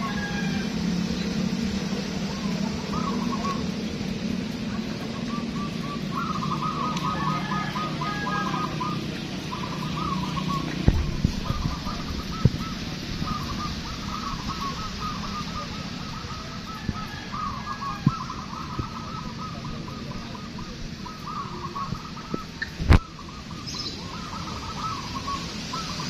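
Many caged zebra doves (perkutut) cooing, their phrases of quick rolling coos overlapping one after another. A low rumble sits underneath in the first half, and a few sharp knocks cut through, the loudest near the end.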